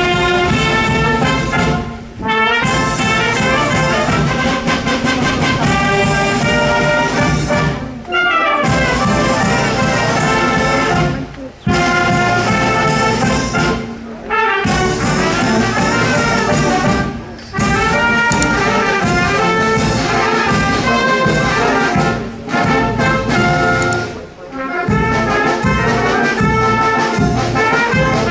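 Brass band playing a tune, trumpets, trombones and saxophones carrying the melody in phrases with short breaths between them.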